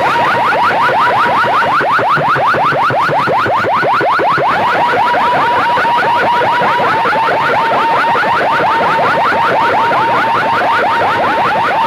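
An electronic siren-like effect blasted at full volume through a big PA sound system: a fast, even train of short rising chirps, several a second, over a steady high tone.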